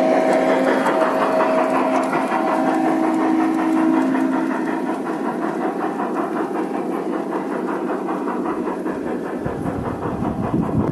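Large-scale LGB model trains running on garden track. A steady horn chord from a locomotive sound unit sounds twice in the first four seconds, followed by a fast run of clicks as the wagons roll over the rail joints. A low rumble rises near the end.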